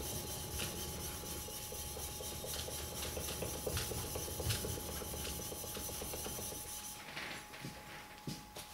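The back of a new T10 steel plane blade being rubbed back and forth on fine abrasive film stuck to plate glass and wetted with honing fluid, a steady rhythmic scraping as the back is lapped flat. The strokes ease off about seven seconds in.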